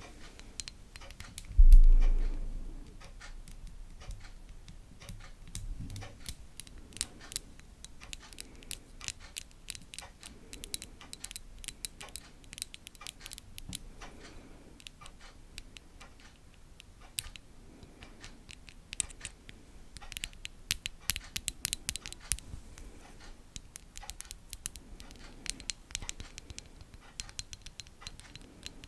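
Close-miked ASMR trigger sounds: dense, fine scratching and tapping clicks throughout, with one loud low thump about two seconds in.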